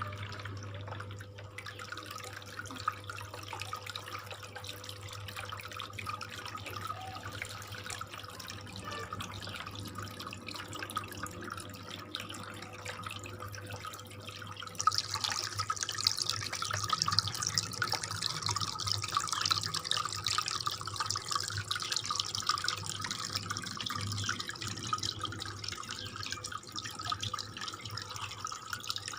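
Water trickling and splashing down a homemade cement waterfall fountain, over the steady low hum of its small aquarium water pump. About halfway through, the splashing becomes louder and brighter.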